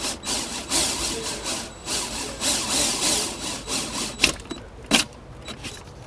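Right-angle drill with a 1 1/8 inch hole saw cutting into the plastic wall of a truck's center console, grinding in short pulses about twice a second. It stops about four seconds in, followed by two sharp clicks.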